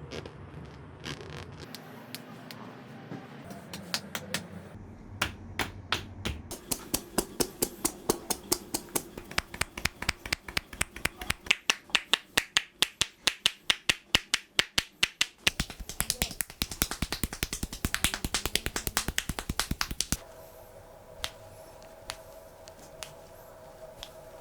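A barber's hands making a long run of sharp snaps and slaps on a client's skin during an Indian head massage. The strokes start sparse, settle into about three a second, then quicken before stopping suddenly. A faint steady hum is left near the end.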